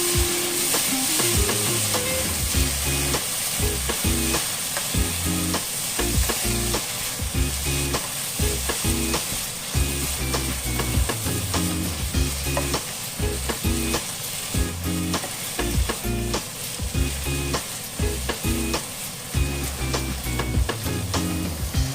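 Sliced lamb leg frying in hot oil in a pan, sizzling steadily while a utensil stirs it, with many sharp clicks and scrapes against the pan.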